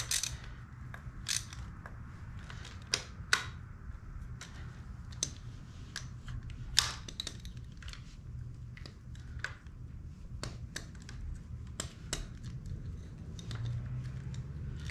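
Irregular small metallic clicks and taps of a hand wrench fastening the starter cable's ring terminal onto the starter motor post, with one sharper click about seven seconds in. A steady low hum runs underneath.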